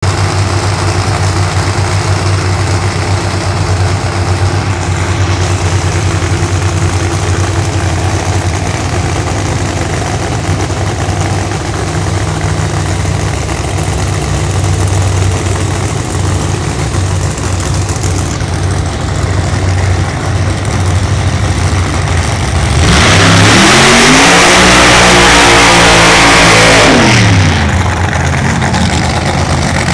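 Drag racing car engines idling steadily. Just past twenty seconds in, an engine revs up sharply and holds high and very loud for about four seconds, then drops back down.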